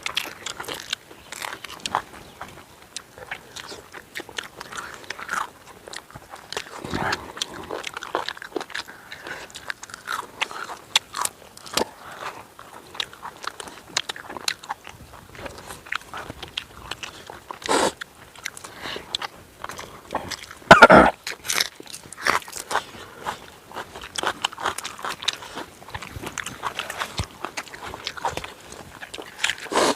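A person eating close to the microphone: bites and chewing with many short crunches, and one louder crunch about two-thirds of the way through.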